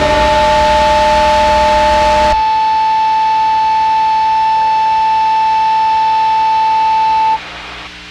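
Amplifier feedback ending a noisecore recording: a wall of distorted noise with a feedback tone over it cuts off about two seconds in, leaving a single steady high feedback whine. The whine stops near the end, leaving a faint hum.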